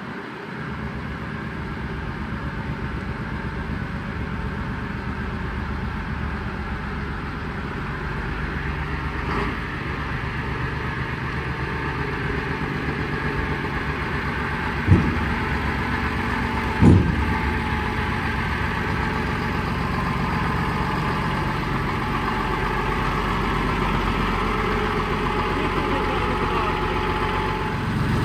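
Foden 6x6 recovery truck's diesel engine running at low revs as the truck moves slowly, with two short sharp clunks about two seconds apart partway through.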